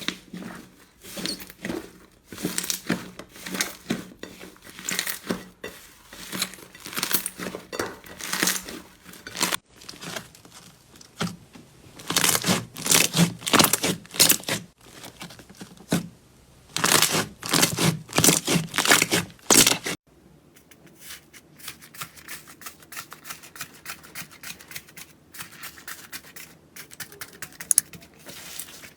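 Slime being squeezed, stretched and pressed by hand, giving loud sticky tearing and crinkling strokes about one or two a second. About two-thirds of the way through, the sound switches suddenly to a quieter, dense crackle of many fine clicks, as from a crunchier slime being worked.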